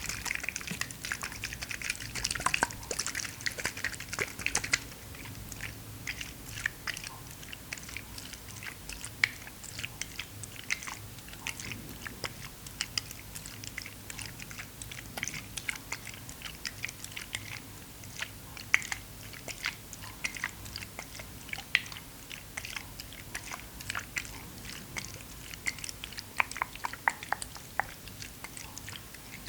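Close-miked ASMR handling sounds: many small, irregular clicks and crackles, with a soft hiss in the first five seconds.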